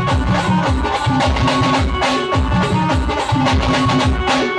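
Live band music played loud through stage loudspeakers: a Khandeshi pavari tune, its melody held over a heavy, steady drum beat.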